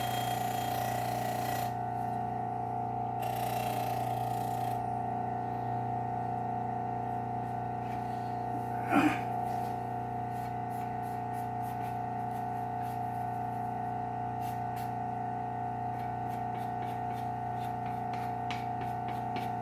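Work Sharp Ken Onion Elite belt sharpener running with a steady motor hum while a steel mower blade's edge is drawn across the abrasive belt, with a grinding hiss in two passes near the start. A brief louder screech comes about halfway through, and light ticks near the end.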